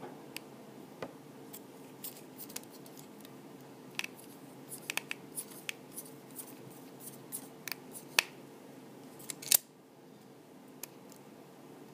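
Irregular small metallic clicks and ticks of a micro Phillips screwdriver working tiny screws out of an iPhone 4's metal frame, with the sharpest click about three-quarters of the way through. A faint steady hum sits underneath.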